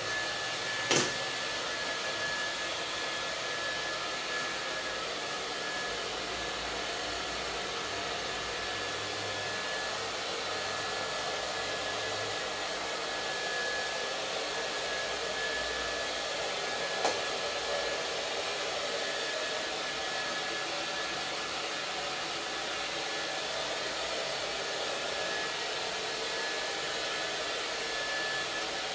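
Handheld hair dryer running steadily, a constant rush of air with a steady high whine. A short sharp knock comes about a second in, and another about seventeen seconds in.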